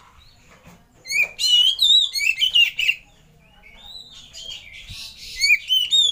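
Male oriental magpie-robin singing: two runs of quick, loud, varied whistled notes that slide up and down, the first about a second in and the second near the end.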